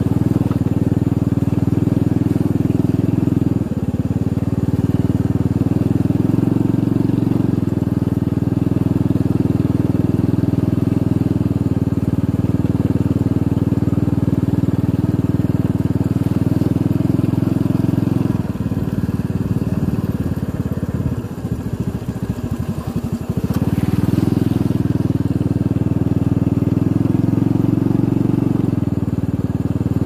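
Small motorcycle engine running steadily while riding; a little past the middle it eases off to a lower, uneven pulsing for a few seconds, then picks up again.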